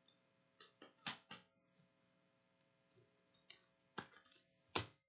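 Trading cards being handled and set down on a table: a scattering of short clicks and taps, a few close together about a second in, more near the end.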